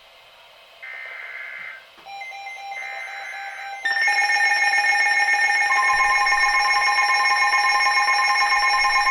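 Emergency alert signal: short bursts of warbling digital data tones (the SAME header), then from about four seconds in a loud, steady attention tone, with a second tone joining about two seconds later. It marks the start of an incoming flash flood warning broadcast.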